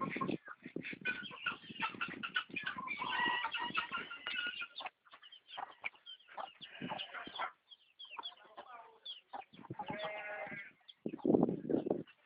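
Chickens clucking: hens with their chicks foraging, with many short calls scattered throughout and a louder burst of noise near the end.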